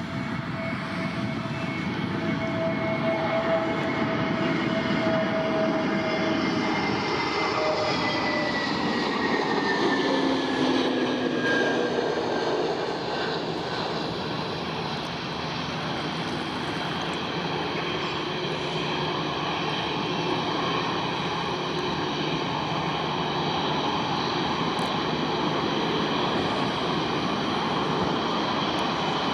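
Airliner's engines passing close by: a steady whine that drops in pitch as it goes past, then a continuous loud rumble.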